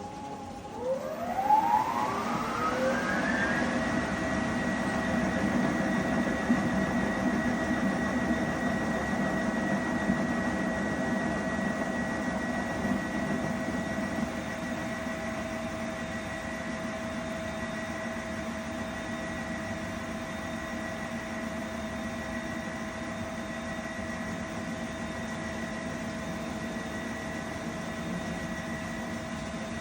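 Unimac UYT025 washer ramping up into its spin: the drive's whine rises in pitch for about three seconds, then holds steady as the drum spins at speed. It turns a little quieter about halfway through.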